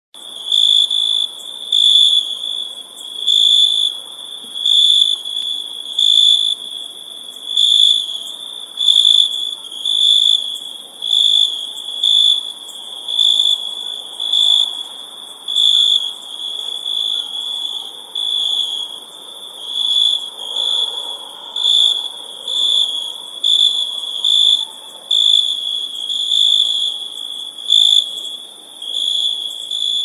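Crickets chirping in a continuous high trill that swells and eases a little slower than once a second, with a faint hiss underneath.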